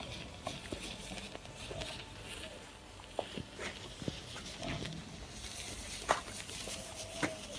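Match heads flaring one after another along a chain of matches, giving scattered sharp crackles and pops over a low hiss.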